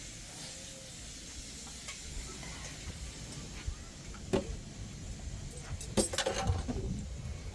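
A sharp knock about four seconds in, then a quick run of clicks and rattles about six seconds in, over a steady low hiss.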